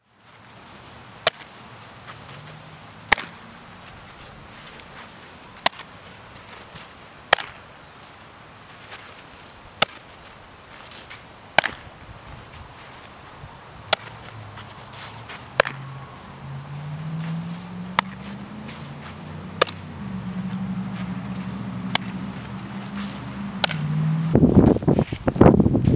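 A softball smacking into a leather fielding glove again and again, a sharp pop every one and a half to two and a half seconds as a game of catch goes on. Wind buffets the microphone near the end.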